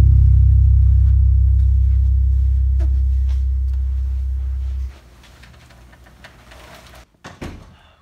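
A deep, sustained low drone from background music, slowly fading and then cutting off abruptly about five seconds in. After it there is faint room noise, with a brief rustle or bump near the end.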